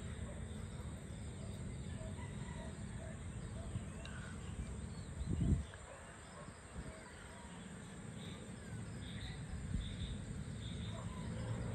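Evening outdoor ambience: scattered faint bird chirps and insect calls over a steady low rumble, with a brief low thump about halfway through.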